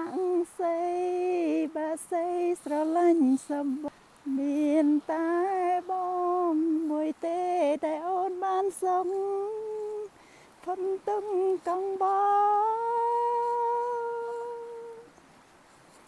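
A woman singing a slow, wordless melody unaccompanied, in sustained notes with short breaks, ending on a long held note that fades out near the end.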